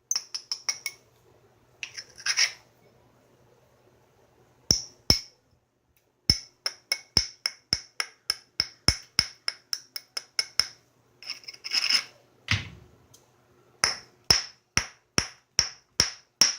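Knapping: runs of light, sharp taps of a hammer on the edge of a stone piece being worked, several a second and ringing briefly. A couple of short scraping passes come in between, about two seconds in and again near twelve seconds.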